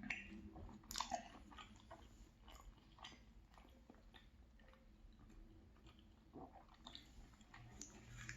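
Quiet close-up chewing and biting of a muffin, soft mouth sounds with scattered small clicks and a couple of sharper bites about a second in.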